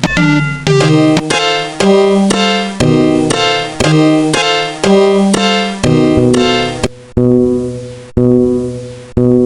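Music: a piano-like keyboard playing a bouncy melody of struck notes, about two a second, slowing after about seven seconds to single notes roughly once a second that each fade away.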